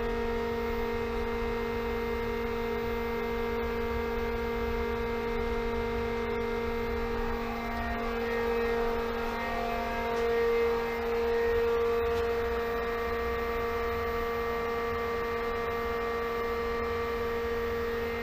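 Pentair SuperFlo variable-speed pool pump running at a high speed setting: a steady motor whine of several held tones over a low rumble, swelling slightly about ten seconds in.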